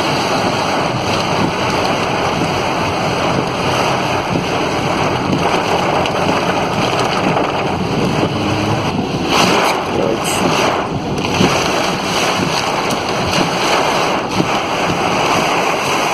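Torrential rain pouring down, with floodwater rushing and wind buffeting the microphone in a steady, loud rushing noise. The hiss swells a few times in the middle.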